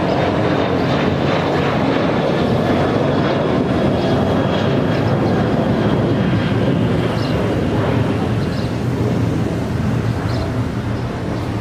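Boeing 737-900ER's CFM56 turbofan engines at climb thrust just after takeoff, a steady jet engine noise that eases a little near the end as the jet recedes.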